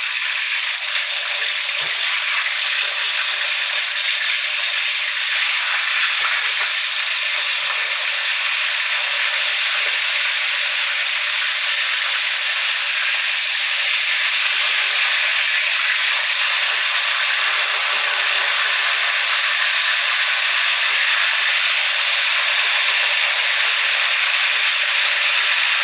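Whole fish frying in a pot of hot oil, sizzling steadily, after being turned.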